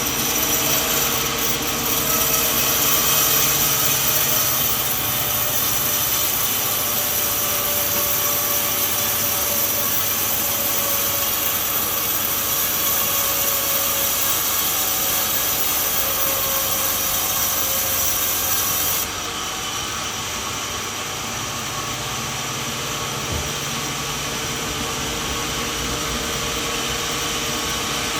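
Sawmill saw cutting through a coconut log, a steady mechanical sawing noise. About nineteen seconds in, the high hiss falls away and the sound becomes a little quieter.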